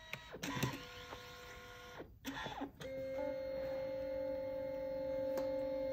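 Canon SELPHY Square QX10 dye-sublimation photo printer at work: a few clicks at first, then from about three seconds in a steady motor whine as the paper is fed through for the first, yellow colour pass. A single click sounds near the end.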